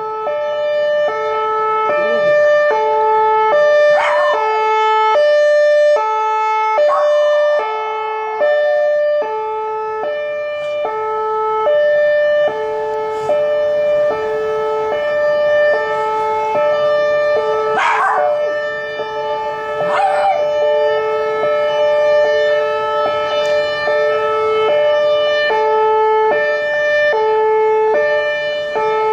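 Outdoor emergency warning siren on its monthly test, sounding loudly in a two-pitch hi-lo pattern that switches a little more often than once a second. A dog howls along over it in several short rising-and-falling calls.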